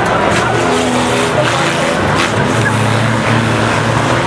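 Banger racing cars' engines running and revving as a pack races round the track, the engine notes rising and falling.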